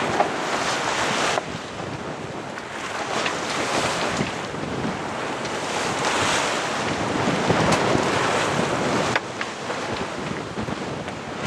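Wind buffeting the microphone and sea rushing along the hull of a small yacht under sail, with no engine running. The rush surges up and down, and drops suddenly a little over a second in and again near the end.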